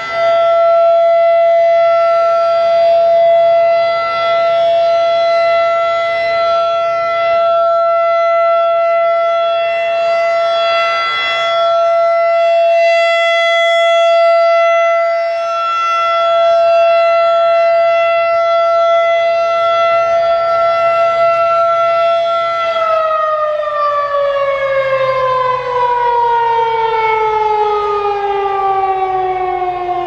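Federal Signal 2001-DC rotating siren sounding its steady alert tone, one held pitch that swells and fades as the horn turns. About 23 seconds in the alert ends and the pitch slides steadily down as the siren winds down.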